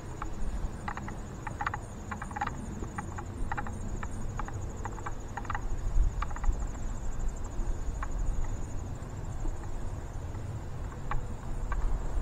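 Crickets chirring in the grass: a steady, high, finely pulsing trill. Irregular light ticks and knocks sound over it, with a low rumble underneath.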